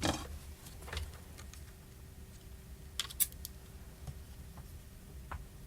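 A few light, sharp clicks and taps of small hand tools and parts being handled during a phone repair, one louder pair of clicks about three seconds in, over faint room noise.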